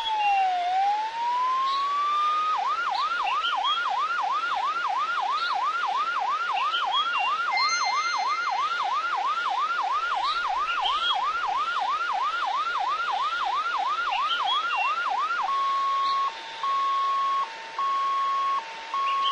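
Electronic siren cycling through its tones. It starts with a slow rising and falling wail, then about two and a half seconds in switches to a fast yelp of rapid rising sweeps, roughly three a second. Near the end it changes to a two-tone hi-lo pattern broken by short pauses.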